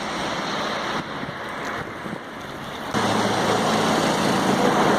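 Wind rushing over the microphone in a snowstorm, jumping suddenly louder about three seconds in, when a steady low hum joins it.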